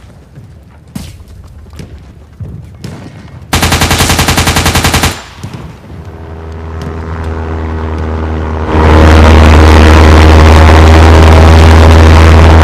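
Machine-gun fire sound effects: a short rapid burst about three and a half seconds in, then fire that builds up and runs loud and continuous from about nine seconds in.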